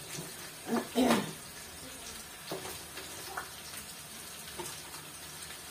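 Water splashing and dripping in a plastic basin as chopped vegetables are lifted out by hand and dropped into a pan, with two louder splashes about a second in and a few softer ones after.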